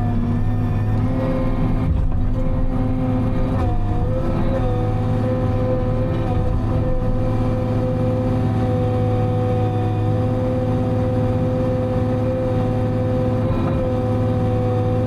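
Diesel engine and hydraulics of a Timberjack 608 tracked harvester running steadily, heard from inside the cab, with a steady whine over a low hum. The pitch dips briefly a few times: once right at the start, at about four seconds, and near the end.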